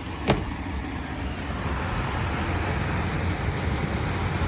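COSTWAY 12,000 BTU portable air conditioner running in fan-only fashion: a steady airflow noise with a low hum, putting out room-temperature air. No compressor vibration can be felt, which the owner takes to mean the compressor may not be working. A single sharp click comes a fraction of a second in, and the airflow noise grows slightly louder after about a second and a half.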